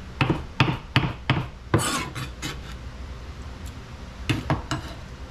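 Kitchen knife chopping shucked oysters on a plastic cutting board: about five quick blade knocks, then a scrape near 2 seconds, and three more knocks past 4 seconds.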